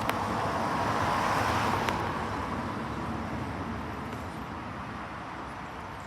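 A road vehicle driving past, its tyre and engine noise swelling to a peak about a second or two in and then slowly fading away.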